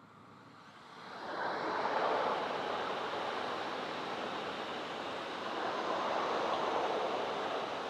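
Two coupled Alstom Régiolis B 85000 multiple units passing on a main line. The rush of wheels on rails swells about a second in, then holds as a steady rolling rush while the coaches go by.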